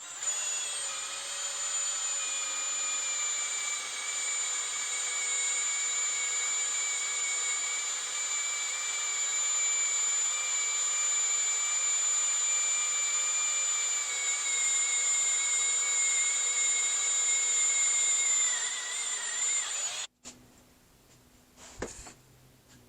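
Electric handheld power tool running for about 20 seconds with a steady high whine, its pitch sagging slightly near the end, then cut off suddenly; a few faint clicks and a knock follow.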